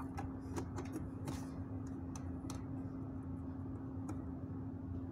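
Light clicks and taps of hands handling an LED lamp panel, its wires and plastic housing, most of them in the first half, over a steady low hum.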